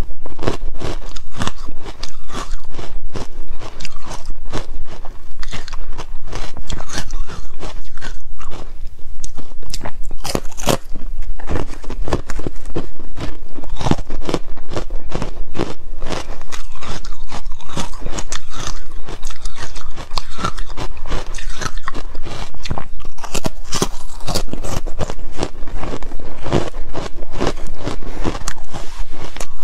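Close-miked crunching and chewing of a stick of carbonated ice: many sharp bites and crackles in quick succession, with the ice scraping through a tray of powder between bites.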